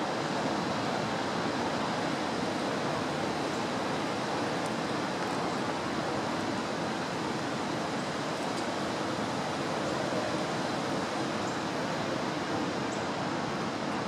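Steady rushing noise of strong wind, with a few faint, short, high ticks now and then.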